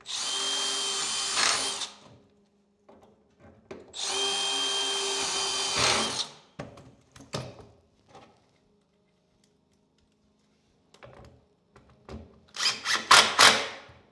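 Power drill driving screws to fix a wardrobe top shelf down onto its cleats, two steady runs of about two seconds each with a constant whine. Several loud knocks follow near the end.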